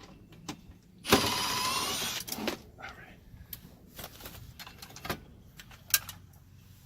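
A small electric motor runs for about a second, its pitch rising slightly, about a second in. Scattered clicks and knocks of hardware being handled follow.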